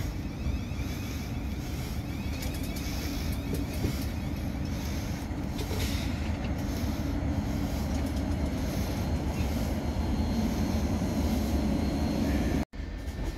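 Thameslink Class 700 (Siemens Desiro City) electric multiple unit moving slowly past the platform, a steady low rumble. It cuts off abruptly for a moment near the end.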